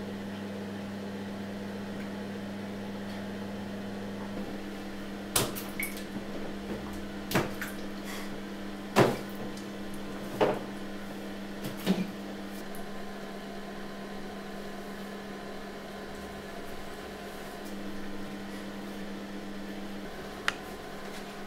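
A steady low electrical-sounding hum, with a handful of sharp knocks and clicks spread over the first half and a single click near the end.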